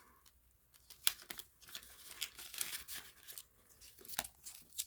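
Paper banknotes being handled and flipped through by hand while being counted, with the dry rustle and crinkle of paper cash envelopes: a run of short, crisp rustles.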